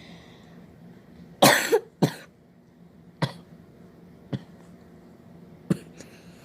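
A person coughing: one loud cough about a second and a half in, then several short single coughs spread through the rest. It is a persistent cough, which its owner puts down to a bad cold.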